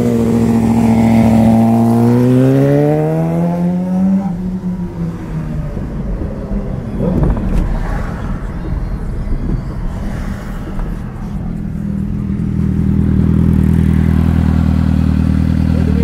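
A vehicle engine accelerating, its pitch rising steadily over the first few seconds, then rougher road and traffic noise, and a steady engine idle over the last few seconds.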